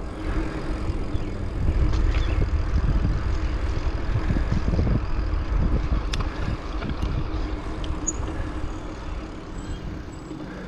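Wind rushing over the microphone and tyre noise of a bicycle rolling along an asphalt street, a low rumble that swells about two seconds in and eases off near the end.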